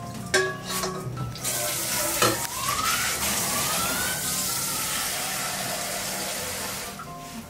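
Pork liver blanching in boiling water in a metal wok. A ladle knocks against the wok a few times in the first second or so, then the boil gives a loud, steady hiss that fades near the end.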